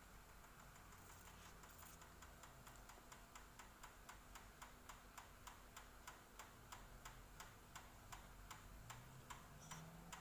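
Faint, even ticking or tapping, about two to three light clicks a second, starting about a second in.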